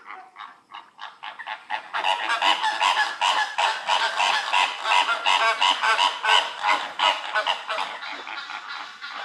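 A flock of birds calling over one another, many short calls a second, quieter at first and growing loud and dense about two seconds in.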